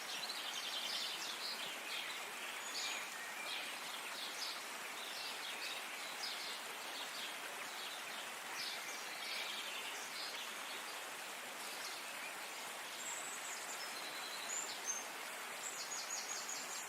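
Birds calling and singing, with many short chirps and fast trills coming one after another, over a steady background hiss.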